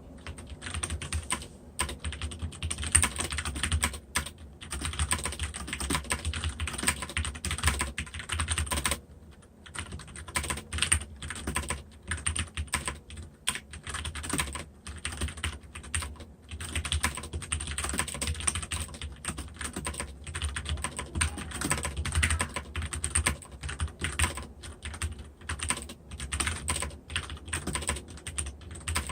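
Continuous fast typing on a Filco Majestouch 2 Ninja mechanical keyboard with Cherry MX Brown switches: rapid, irregular key clacks, with a few brief pauses.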